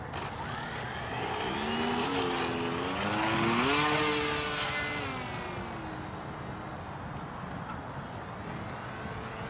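Brushless electric motor of a hand-launched foam RC plane running at full throttle, with a steady high whine. It starts suddenly and its pitch wavers and rises during the launch. It fades after about five seconds as the plane flies off.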